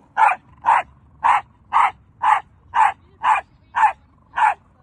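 A corgi barking over and over at a shiba inu, with nine barks at an even pace of about two a second.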